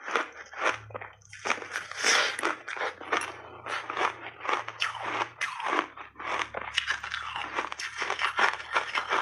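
Frozen flavoured block ice crunched in big bites and chewed, a fast, irregular run of sharp crisp cracks, picked up close by a clip-on microphone.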